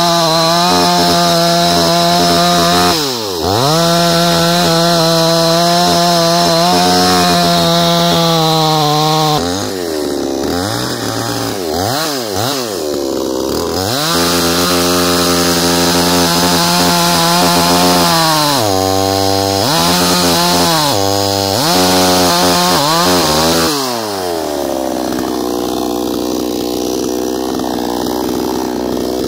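Two-stroke petrol chainsaw cutting through a log at high revs, its engine pitch dipping and rising again several times. Near the end the revs fall and it runs on at a steady idle.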